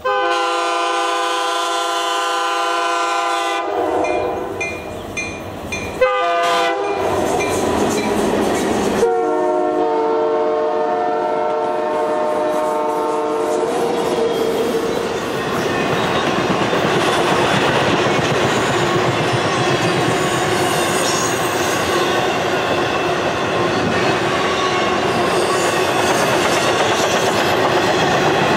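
Train horn sounding a long chord, a few short blasts, then another long chord. From about halfway in, the steady rumble and clickety-clack of a passenger train rushing past takes over.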